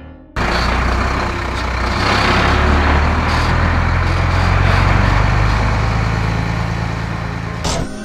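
Heavy truck engines running as trucks drive along, a steady low hum under road noise. It starts abruptly and cuts off shortly before the end.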